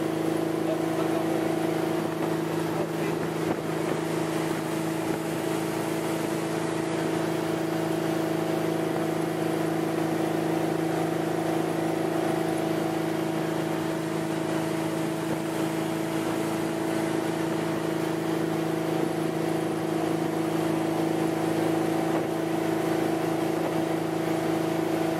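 Tow boat's engine running at steady cruising speed, an unchanging drone, over a constant rush of water and air noise.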